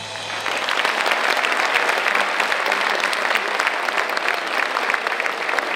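Audience applauding: dense, steady clapping from a hall full of people, swelling up right as the song ends.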